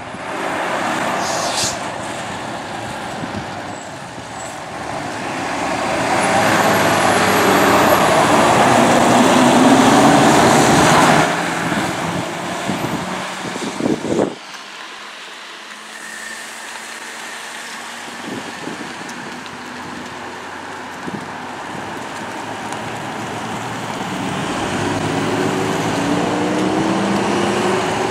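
Fire engine's diesel engine running as it drives past, growing louder to a peak and then cutting off sharply about halfway. An ambulance's engine then approaches, rising in pitch and level near the end.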